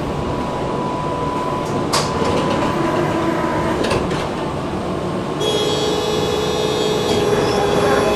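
Inside a tram car: the steady rumble of the tram with a few sharp clicks, and about five seconds in a steady electric whine of several tones sets in and holds.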